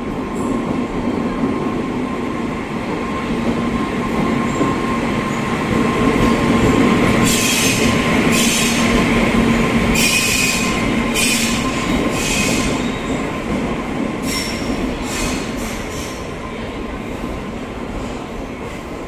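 Electric-hauled passenger train arriving alongside a station platform. A steady hum comes as the locomotive passes, then the coaches rumble by. Short high screeches from the wheels and brakes recur from about seven to seventeen seconds in.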